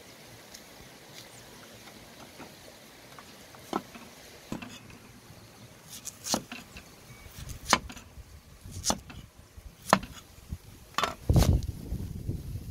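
Cleaver slicing a peeled bamboo shoot into rounds on a wooden chopping block: each cut ends in a sharp knock of the blade on the wood, roughly one a second, starting a few seconds in, with the heaviest, deepest knock near the end.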